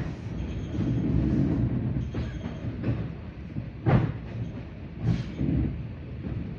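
Suburban electric train running, heard from on board: a steady low rumble of wheels on rails with sharp knocks as the wheels cross rail joints and switches while the train changes tracks. The loudest knock comes about four seconds in.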